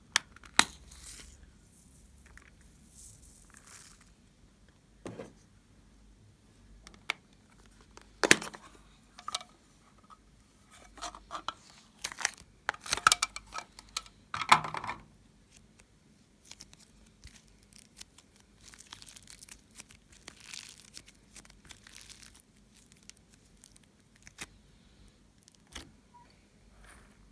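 Homemade slime being kneaded and stretched by hand, giving scattered sticky crackles, pops and clicks. They come most thickly in the middle, with quieter gaps either side.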